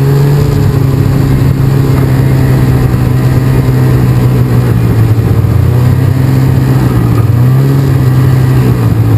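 Snowmobile engine running at low speed as the sled creeps along, a steady drone that rises slightly in pitch about seven and a half seconds in.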